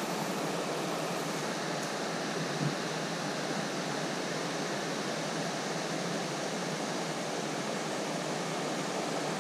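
Pyrenean mountain river flowing steadily: an even, unbroken rush of water.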